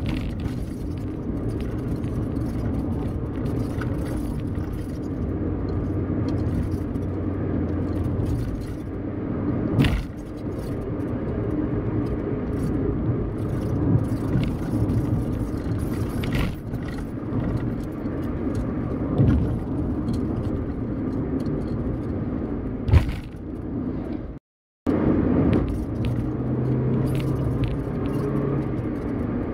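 Car cabin road noise while driving on a rough, patched and potholed road: a steady low rumble of tyres and engine, with a few sharp knocks and light rattles as the wheels hit bumps. The sound cuts out for a moment about three quarters of the way through.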